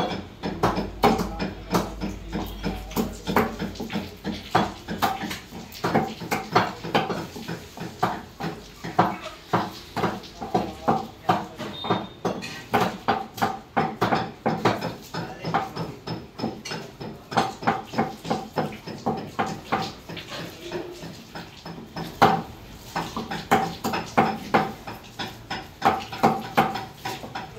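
Meat cleaver chopping skinned chicken into curry pieces on a wooden tree-trunk chopping block, a rapid, steady series of sharp chops.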